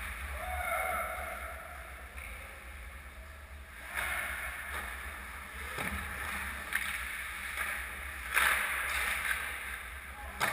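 Ice-rink sound during a hockey game: the hiss and scrape of skate blades on the ice over a steady low hum, broken by a few sharp clacks, the loudest about eight seconds in.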